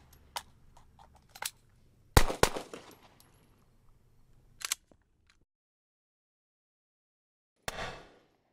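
Pistol drill: a few light clicks of handling, then two quick pistol shots about a quarter second apart, each trailing off in a short echo. A sharper click follows a couple of seconds later, and near the end one more sharp bang fades quickly.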